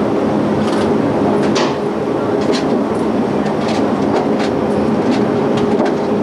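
Ship's engines droning steadily aboard the naval tender Saar, with a constant low hum and irregular sharp clicks and rattles over it.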